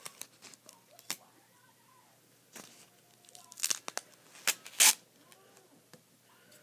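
Masking tape being pulled from the roll and torn, with paper crinkling as it is pressed down: several short rips, the loudest about five seconds in.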